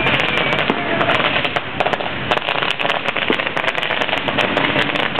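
French bangers (firecrackers) going off in a dense, uneven crackle of many sharp bangs a second, over a continuous background din.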